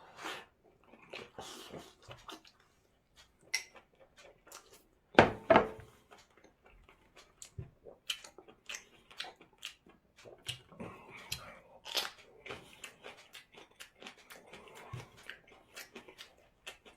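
A person eating close to the microphone: chewing and biting, with many small scattered clicks and crackles and a louder clatter about five seconds in.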